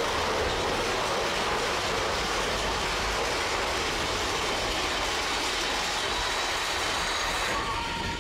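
Big Thunder Mountain Railroad mine-train roller coaster cars running fast along the track: a dense, steady rumble and rattle of wheels on rail. Near the end the noise thins and a thin wheel squeal comes in.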